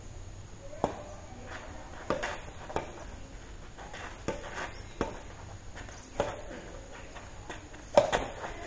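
Badminton rally: rackets striking the shuttlecock in turn, a sharp smack about every second. The loudest hit comes near the end.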